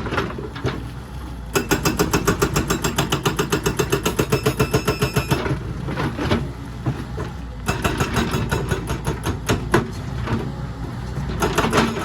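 Excavator-mounted hydraulic breaker hammering in rapid, evenly spaced blows, several a second, over the excavator's running engine. The hammering stops twice, early on for about a second and a half and near the middle for about two seconds, leaving only the engine.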